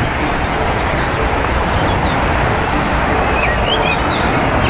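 Four-engined Airbus A380 on landing approach with its gear down: steady jet engine noise. A few birds chirp faintly about three to four seconds in.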